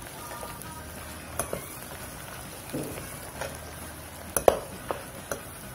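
Shallots, garlic, ginger and herbs sizzling in hot coconut oil in a wok, with a steady frying hiss. A metal slotted spoon clinks and scrapes against the wok several times as they are stirred, most sharply toward the end.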